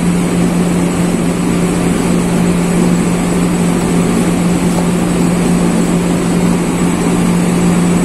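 A steady mechanical drone with a strong low hum, unchanging throughout.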